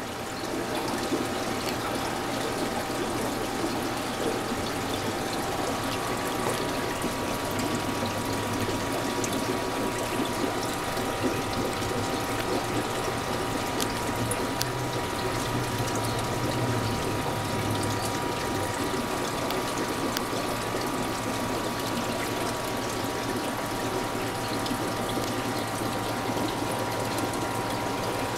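Aquarium filter and pump running steadily, with water bubbling and a constant hum.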